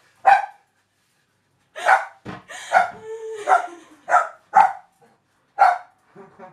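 Dog barking repeatedly, about eight short, sharp barks at uneven intervals.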